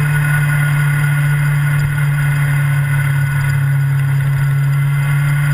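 Road-racing motorcycle engine running at steady revs, its pitch holding level, with wind noise on the onboard camera.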